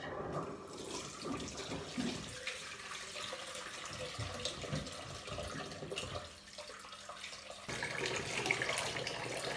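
Bath tap running into a plastic jug as it fills. About eight seconds in, water is poured from the jug over a dog's back and splashes into the bathwater.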